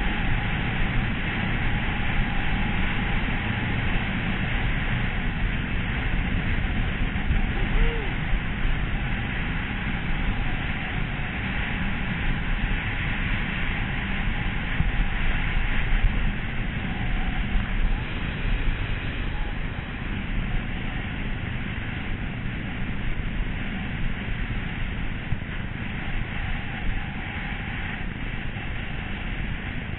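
Wind buffeting a helmet-mounted camera's microphone at skiing speed, a steady low rumble, with the hiss of skis running over tracked, packed snow.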